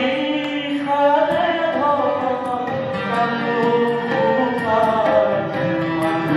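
A man singing an Assamese song into a microphone over instrumental accompaniment, with steady percussion keeping the beat.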